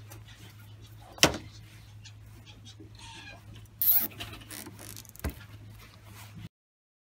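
A plastic cable tie being threaded and pulled tight around a plastic pipe: sharp clicks of handling, with a short loud rasp of the tie's ratchet about four seconds in, over a steady low hum. The sound cuts off suddenly near the end.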